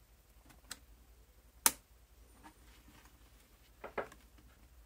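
Popcorn bucket projector's trigger clicking as the image wheel turns to the next picture: a few sharp clicks, the loudest about a second and a half in and a quick pair near the end.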